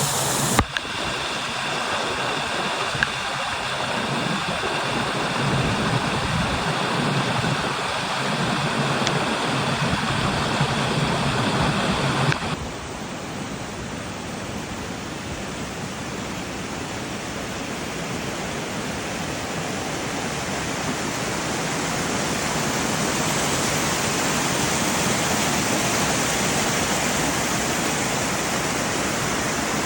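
Small upland stream waterfall splashing steadily. Its tone and level shift abruptly twice, about half a second in and again around the middle.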